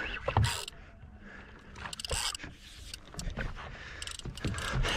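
Spinning reel's drag buzzing in uneven spurts as a hooked amberjack pulls line off against it.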